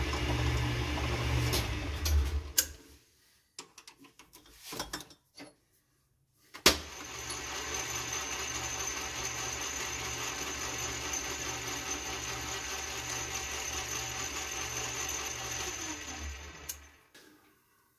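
Metal lathe running as it turns a steel spacer to length, then switched off about two and a half seconds in. A few light clicks and knocks while it is stopped, then a sharp click as it is switched back on about seven seconds in. It runs with a steady hum and a slow pulse a little over once a second, then spins down and stops near the end.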